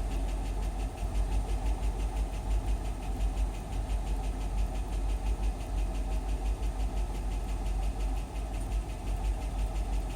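2002 Chevrolet Tahoe's 5.3L V8 idling with a fast, even ticking running through it. This is the cold-engine noise that the owner says disappears once the engine warms up, cause not yet identified.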